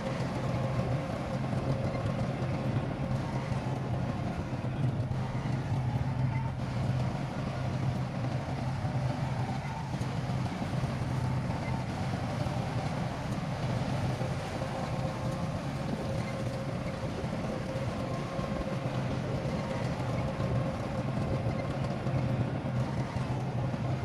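Heavy diesel engine of earth-moving equipment running steadily: an even low drone with a faint steady whine above it.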